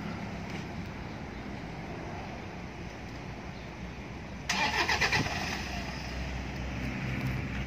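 A motor vehicle engine starting: a sudden clatter about four and a half seconds in, settling into a steady low idle rumble.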